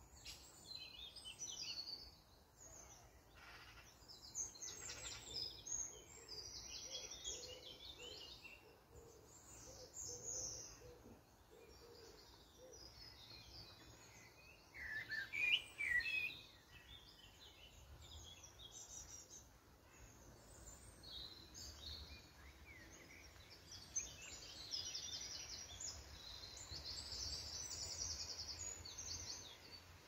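Several wild birds chirping and singing, their calls overlapping, with a louder burst of chirps about halfway through and a fast series of repeated high notes near the end.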